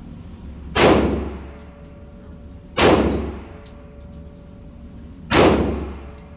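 Glock pistol firing three shots about two seconds apart, loaded with steel-cased full-metal-jacket ammunition from an aftermarket extended magazine. Each shot rings out and fades over about a second.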